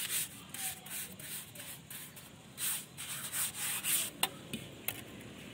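Steel trowel scraping and smoothing a wet mortar bed on top of a brick course, in short irregular strokes, to build up a low spot to level. A couple of sharp clicks come in the second half.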